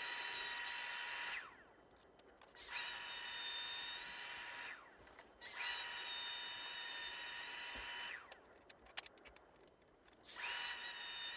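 Bosch router with a 45-degree chamfer bit running at speed with a steady high whine while chamfering the edges of laminated maple leg blanks. It is switched off three times, winding down to quiet, and each time starts up again a moment later.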